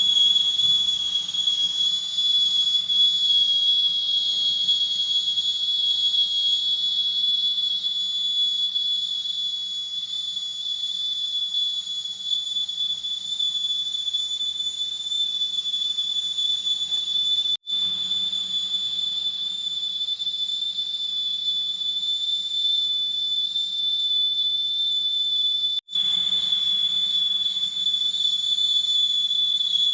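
Idli pressure cooker whistling as built-up steam pressure vents: one steady, high-pitched whistle over a hiss, dropping out for an instant twice, once a little past halfway and once near the end.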